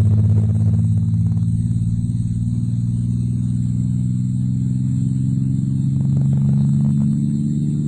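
A low, steady drone of several layered humming tones that slowly shift in pitch, presented as NASA's sonification of a black hole.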